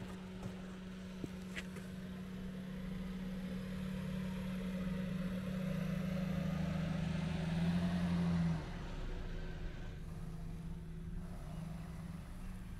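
A motor vehicle's engine running nearby with a steady low hum, swelling over several seconds and dropping off abruptly about two-thirds of the way in.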